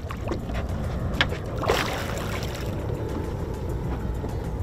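Boat motor running with a steady low rumble, and a couple of short splashes about a second and a half in from a hooked tarpon thrashing at the surface beside the boat.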